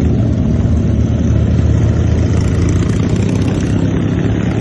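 Big motorcycle engines running together, a loud, steady low-pitched engine sound.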